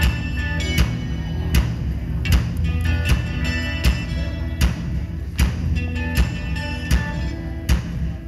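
Live band playing: electric guitars over a strong low bass line and drums, with a sharp drum hit on a steady beat about every three-quarters of a second.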